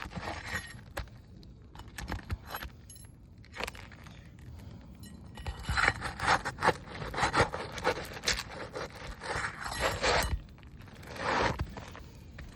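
Irregular scraping and rubbing as an asphalt roof shingle is worked loose and pulled out, busiest in the second half.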